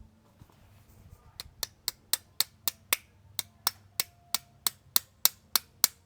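Light, evenly spaced hammer taps on metal, about four a second, starting about a second and a half in, some with a faint ring.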